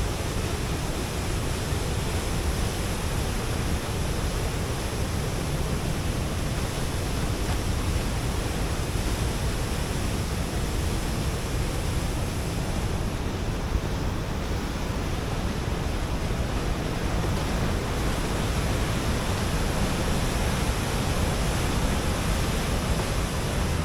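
Waterfall roaring in full spring-melt flow: a steady, unbroken rush of water with no change in level.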